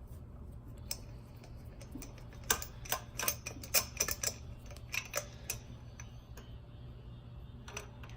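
Sharp metallic clicks and clinks of a spark plug tool being worked with a lever to unscrew a spark plug from the engine. The clicks come in an irregular cluster in the middle, over a steady low hum.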